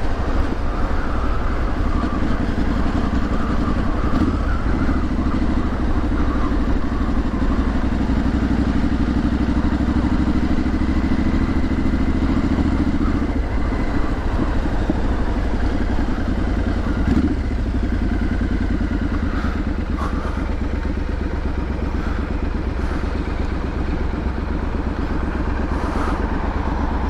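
Triumph Street Scrambler 900's 900 cc parallel-twin engine and exhaust running steadily while riding through town. The note changes a couple of times around the middle.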